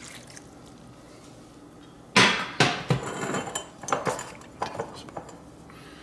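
Kitchen containers being set down and handled on a countertop: a sharp clunk about two seconds in, then a run of lighter knocks and clatters.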